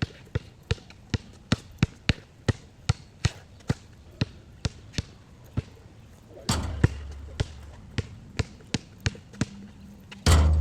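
A basketball being dribbled, with steady bounces about two to three a second. There are two louder hits with a low ringing tail, one about six and a half seconds in and one near the end.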